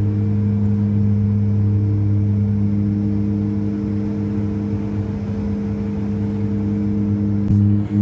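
Light aircraft's piston engine and propeller droning steadily, heard from inside the cabin. Near the end the drone jumps louder and begins to pulse.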